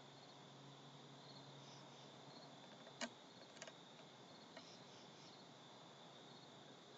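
Faint, steady chorus of crickets. About three seconds in come a few sharp clicks, the first the loudest.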